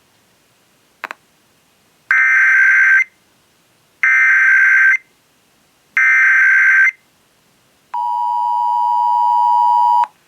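Emergency Alert System SAME header: three one-second bursts of shrill data tones about two seconds apart, followed by about two seconds of the EAS two-tone attention signal, steady and growing slightly louder. Together they open an EAS required monthly test broadcast over FM radio. A short click comes about a second in.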